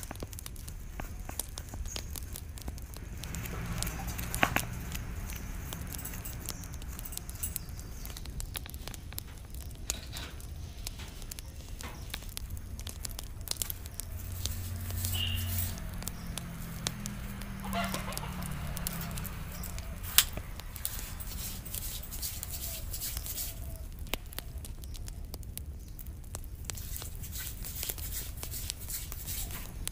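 Chickens clucking in the background, with many short sharp clicks and crackles from close-up scraping and a wood fire.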